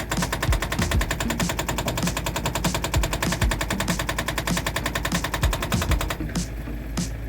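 Excavator-mounted hydraulic breaker hammering rapidly and steadily on boulders. It stops about six seconds in, leaving the excavator's engine running.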